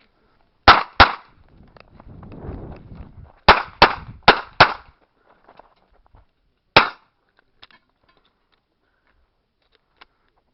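Revolver shots fired in an IPSC stage: a quick pair, then a fast string of four a couple of seconds later, and one more shot a few seconds after that. A low rumbling noise fills the gap between the pair and the string of four.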